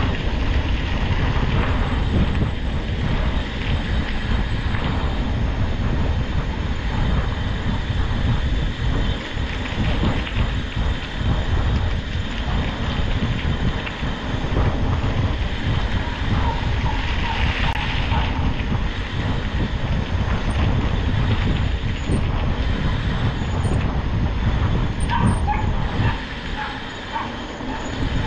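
Wind buffeting the microphone, with the rumble of moving over a rough track: a loud, fluctuating low noise.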